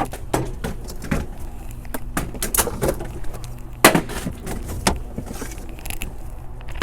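Irregular knocks and clatters of food containers being handled and tossed while a spoiled refrigerator is emptied, with one sharper knock about four seconds in, over a low steady hum.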